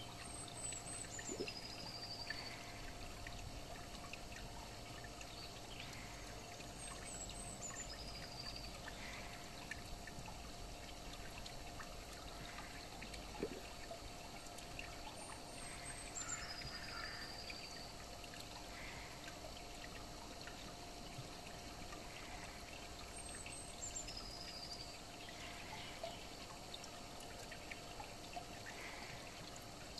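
Water pouring and trickling steadily into a garden pond, with a short, high, falling whistle repeating about every eight seconds.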